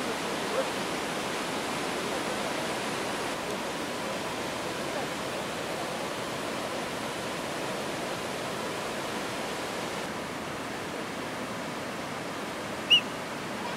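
Steady rushing roar of a monsoon-flooded waterfall and river rapids, an even noise with no pitch. Near the end comes one short, sharp high chirp.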